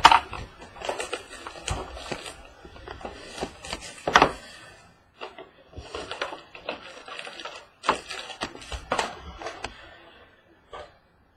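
Irregular crinkling, clicking and rustling of trading-card packaging being handled and opened: a box of baseball cards and its pack wrapper. The sound grows quieter near the end.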